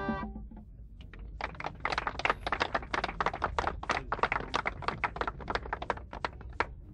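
Scattered hand clapping from a small crowd: irregular sharp claps, several a second.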